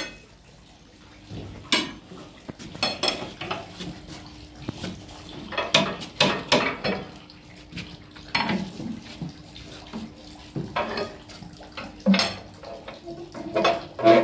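Irregular metal clinks and knocks from the swing-bolt clamps on the lid of a pressurized yarn dyeing machine being tightened and checked, over a faint steady hum.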